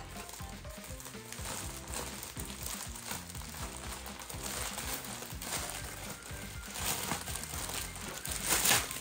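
Crinkling and rustling of a plastic bubble mailer being handled and opened, with a plastic-bagged package slid out; the loudest crinkle comes near the end. Background music with a steady beat plays underneath.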